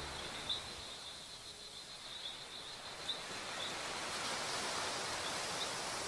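Surf washing onto a sandy beach: a soft, steady hiss of waves that swells about two-thirds of the way through, with a few faint, short high chirps now and then.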